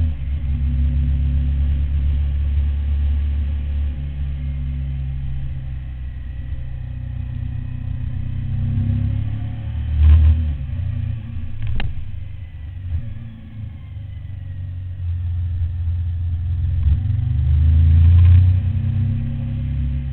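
Suzuki SV1000's V-twin engine running on the move, heard on an onboard camera, with heavy wind rumble over the microphone that swells loudly twice, about halfway through and near the end. A single sharp click comes just after the first swell.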